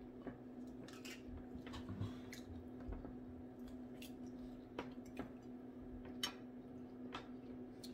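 A person quietly chewing fried fish and french fries, with irregular short clicks and smacks of the mouth and fingers on the food, over a steady low hum.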